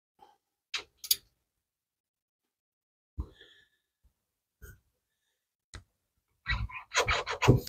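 Scattered clicks and knocks of hand tools and metal parts being handled at the engine's thermostat housing and coolant hose. A quick run of rapid clicking comes near the end.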